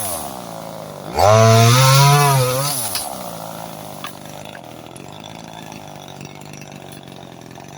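Two-stroke chainsaw revved once: the engine speeds up about a second in, holds high for about a second and a half, then drops back to a steady idle.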